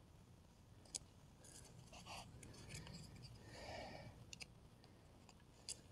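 Faint clicks and light scraping of thin wooden sticks being handled as the trigger stick of a homemade stick-cage bird trap is set: one sharp click about a second in, soft rustling through the middle, and a few small ticks near the end.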